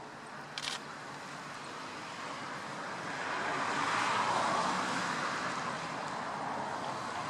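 A vehicle passing: a rushing noise that swells to its loudest about four seconds in, then eases off. A brief sharp click sounds about half a second in.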